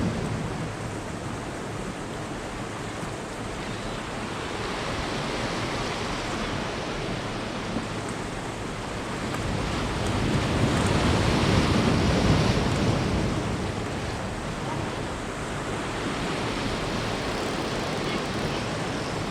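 Sea surf washing in steadily, with wind buffeting the microphone; the waves swell louder for a few seconds around the middle.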